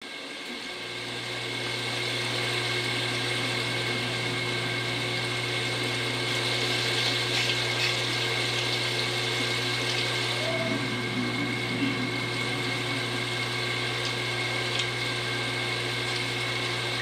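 Steady rush of a river on a film soundtrack, played through a television's speakers, with a strong low rumble under it.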